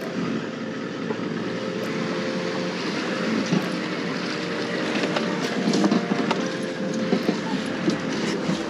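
A four-wheel drive's engine running steadily at low speed as it drives through a shallow river crossing, with water washing around the vehicle and a few light knocks.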